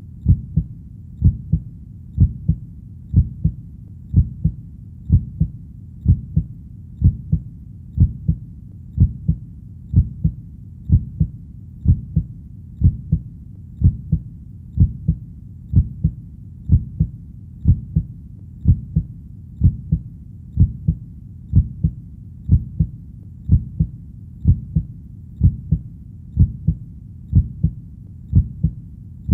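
Slow, steady heartbeat: deep paired lub-dub thumps, about one beat a second, repeating evenly.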